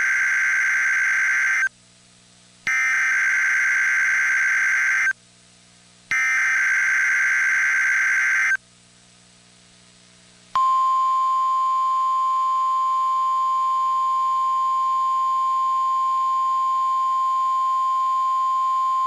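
NOAA Weather Radio test signals: three buzzy SAME digital header bursts, each about two and a half seconds long with a second's gap between them. After a short pause comes a single steady, high warning alarm tone (the 1050 Hz tone) held for about nine seconds. Together they are a routine test of the station's alarm tones.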